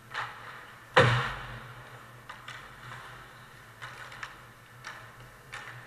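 Ice hockey play at the net: sticks and puck knocking. One loud hit about a second in has a booming ring after it, and about half a dozen lighter clacks follow. A steady low hum runs underneath.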